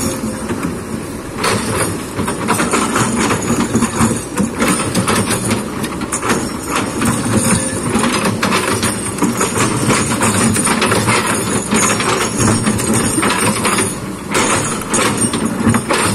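Kobelco hydraulic excavator's diesel engine running steadily, with frequent sharp knocks and clatter throughout.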